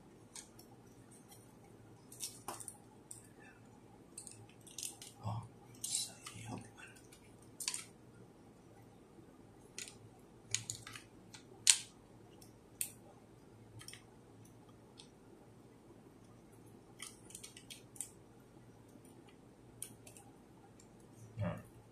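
Small plastic and metal parts of a LINGDU D200 dashcam clicking and tapping as they are handled and fitted together by hand: scattered sharp clicks, the loudest about halfway through.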